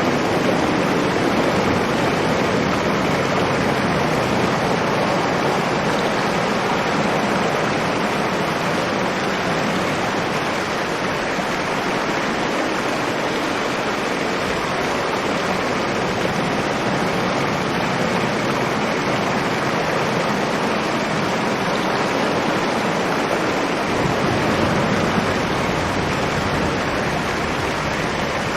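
Fierce storm with strong wind blowing outside a cave, heard from within as a dense, steady rush of noise, with a deeper rumble joining near the end.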